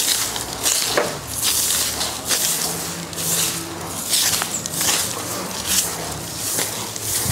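Long bundled-stalk village broom (okoba) sweeping sandy dirt ground: repeated scratchy swishes, one or two strokes a second.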